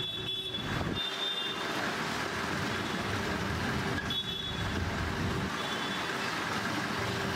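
Street traffic noise: vehicle engines running, with short high-pitched electronic beeps a few times.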